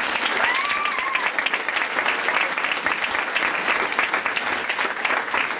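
Audience clapping steadily, a dense even patter of many hands. A short high-pitched call rises and falls over it about half a second in.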